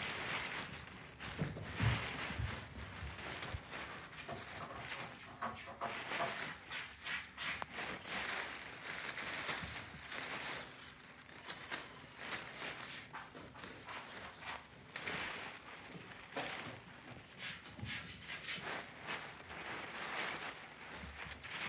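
Crumpled tissue paper rustling and crinkling in irregular bursts as kittens dig, pounce and wrestle in a tissue-paper pit, with a few soft thumps early on.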